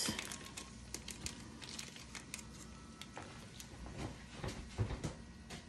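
Faint crinkling and clicking of a plastic dressing packet being squeezed out into a small bowl, with a few soft knocks as things are set down on a wooden cutting board.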